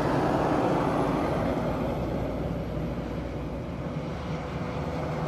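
Steady vehicle noise: an even, constant rumble with a faint low hum under it.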